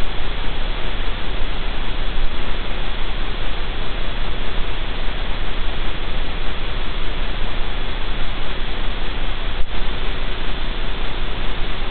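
Steady, loud static hiss from the den camera's outdoor microphone, with one faint click about ten seconds in.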